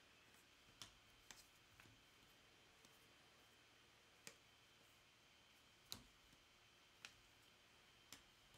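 Near silence broken by about seven faint, sharp clicks at irregular spacing as baseball trading cards are flipped through and set down.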